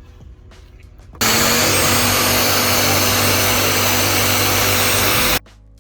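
An electric power tool's motor runs loudly and steadily for about four seconds, switching on about a second in and cutting off abruptly, while it works on body filler in a plastic car bumper.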